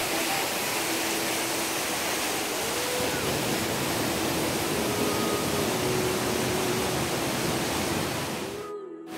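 Steady rush of a mountain stream or waterfall, an even noise with no rhythm, fading out shortly before the end.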